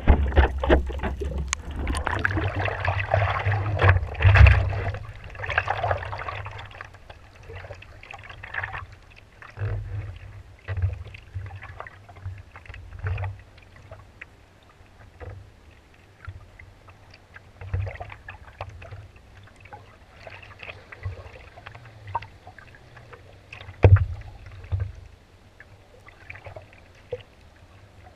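Water sloshing and lapping against a longboard surfboard, heard from a camera on its nose: loud churning for the first few seconds, then scattered small splashes and knocks against the board, with one sharp slap late on.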